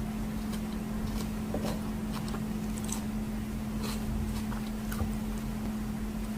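A person chewing pineapple salad with freshwater crab, with scattered small clicks, over a steady low hum.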